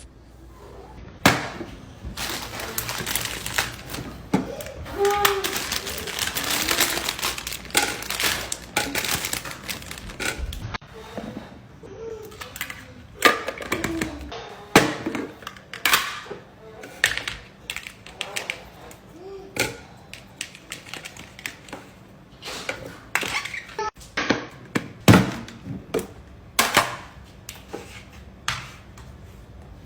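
Groceries and clear plastic fridge organizer bins being handled and set down: irregular clacks, taps and knocks, with rustling, most steady in the first ten seconds.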